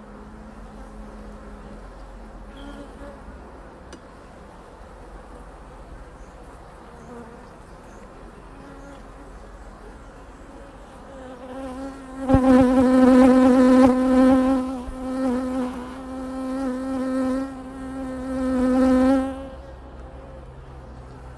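Honeybees humming at an open hive. About twelve seconds in, a single bee buzzes loudly close by for about seven seconds, holding one pitch while its loudness rises and falls.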